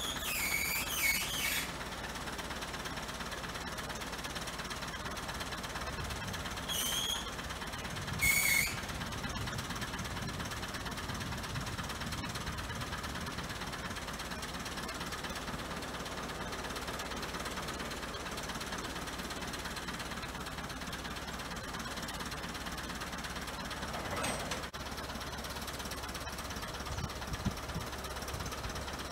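SAME Mercury 85 tractor's diesel engine running steadily at a distance while it drags a 20-foot steel shipping container over the ground. Three brief high-pitched squeals stand out in the first nine seconds.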